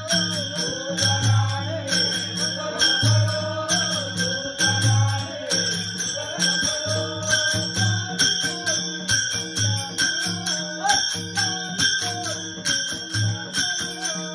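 Music with a steady beat: a deep drum pulse, bright jingling percussion about twice a second, and a gliding melody line over it.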